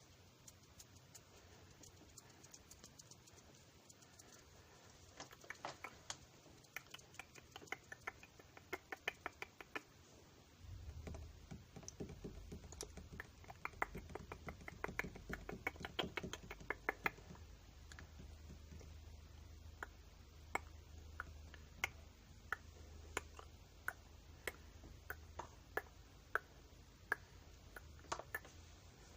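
Close-miked ASMR trigger sounds: clusters of quick, light clicks and taps. About a third of the way in, a low rumble of handling on the microphone joins them, and the clicks become sparser toward the end.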